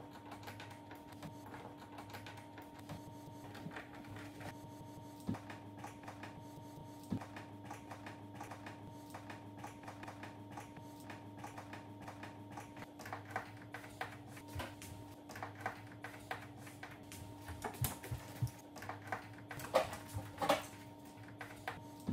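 Scattered light clicks and taps of screws and plastic being handled as the TV's rear cover screws are driven back in. The clicks grow more frequent and louder toward the end, over a steady low hum.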